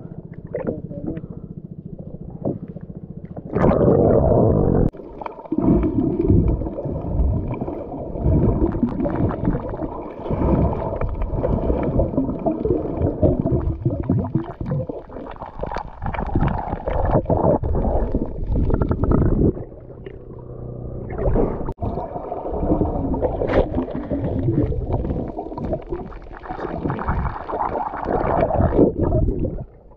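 Muffled underwater rumbling and gurgling picked up by an action camera held underwater, in long stretches broken by short lulls; it jumps much louder about three and a half seconds in.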